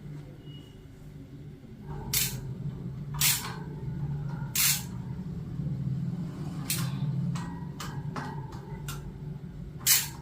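Disc brake rotor being fitted and bolted onto an e-bike's front hub: a series of short, sharp metallic clicks and rasps at irregular intervals over a low steady hum.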